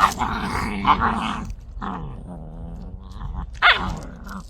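A dog growling and grumbling, with a sharper falling yelp near the end.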